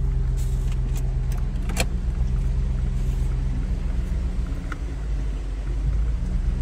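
Ford vehicle's engine and tyres running steadily on a dirt road, heard inside the cab as an even low drone. A few sharp clicks sound between about half a second and two seconds in.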